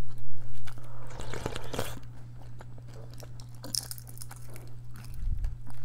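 Close-up eating sounds: crunchy bites and chewing of a crisp roasted seaweed sheet, with sharp crackles, loudest in the first couple of seconds. A steady low hum runs underneath.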